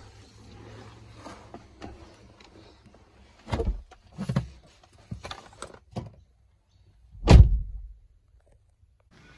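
A low steady hum inside a car's cabin for the first few seconds, then a run of sharp knocks and thumps, with the loudest, deepest thump about seven seconds in.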